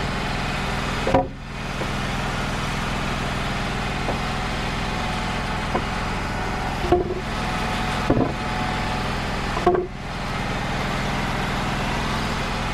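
Portable band sawmill's engine running steadily, with a few short knocks or clanks from the mill about a second in and again around seven, eight and ten seconds in.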